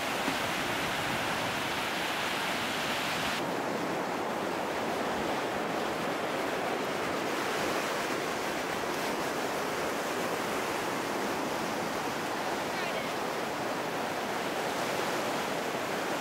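Steady wash of small surf on a sandy beach, an even hiss without distinct breaks; the upper hiss drops away about three seconds in.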